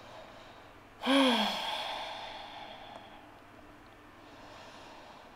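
A woman's audible sigh: a long exhale that begins with a short voiced hum about a second in, then trails off as breathy air over about two seconds, taken while holding downward facing dog.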